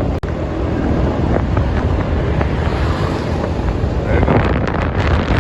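Wind buffeting the microphone over the steady low rumble of a moving vehicle on the road.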